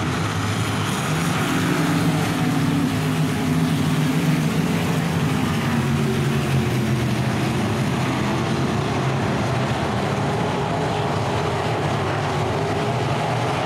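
Dirt track race cars running at speed around the oval, their engines making a loud, steady drone whose pitch wavers a little.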